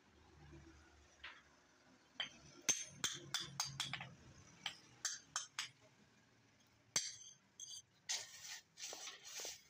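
Hand hammer striking a hot forged axe head on a steel anvil: a quick run of about ten sharp metallic clinks, then one more a little later. Near the end the hot axe is quenched in a tub of water, sizzling in a few short bursts.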